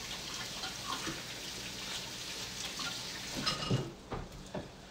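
Kitchen tap running as hands are washed under it at the sink. The water shuts off about four seconds in, with a few light knocks around that moment.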